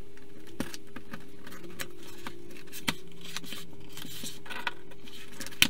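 Cardboard mailer box being slit open along its taped edge with a pointed tool: scraping and rustling of card and tape, with a few sharp clicks, the loudest near the end.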